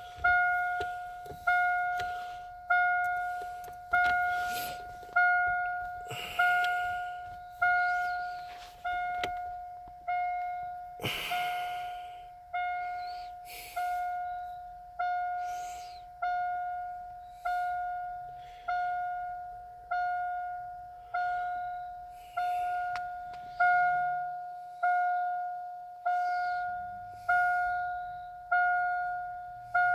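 A car's warning chime dinging over and over, one bell-like tone struck and fading about every second and a half. A brief louder rustle or clunk comes about eleven seconds in.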